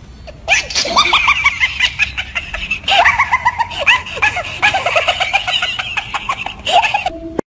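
High-pitched laughter in a rapid run of short laughs, starting about half a second in and cut off suddenly near the end.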